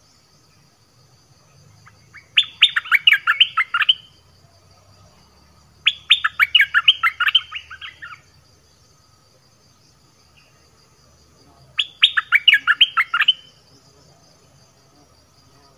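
Bulbul song: three loud bursts of rapid, chattering notes, each lasting about one and a half to two seconds, spaced several seconds apart.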